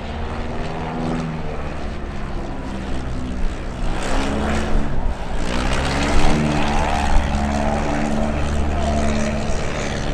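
Single-engine light plane of the Piper Cub type flying low past, its engine and propeller sound rising and falling in pitch as the throttle is worked and the plane passes.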